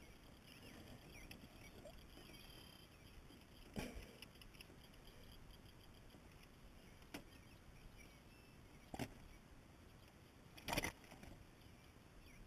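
Quiet outdoor background broken by four short, sharp clicks and knocks of a hand-held fish scale and its chain being handled while a bass is hooked on to be weighed. The loudest knock comes near the end.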